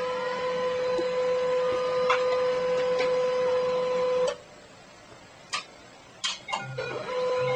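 Desktop printer running: a steady mechanical whine of its paper-feed and print motor that stops abruptly about four seconds in, followed by a few sharp clicks, then starts again just before the end.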